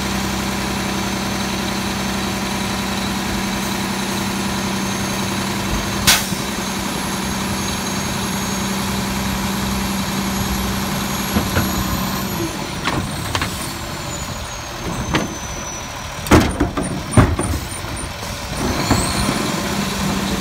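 Bridgeport Trinity garbage truck running steadily at raised revs with a high whine, and a sharp bang about six seconds in. Past the middle the revs and the whine fall away, a few loud metal clanks follow, and the whine rises again near the end as the truck's hydraulics come back up.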